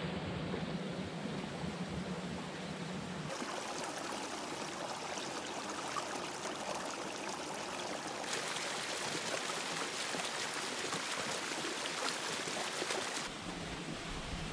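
Steady rush of a small creek running among boulders. The sound changes abruptly about three seconds in, again about eight seconds in, and near the end, where it drops back.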